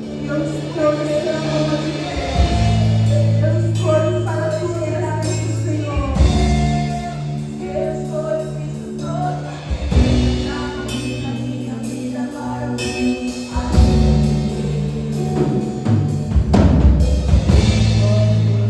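Gospel worship song sung by a vocal group over a band, with sustained bass notes and a drum kit keeping the beat.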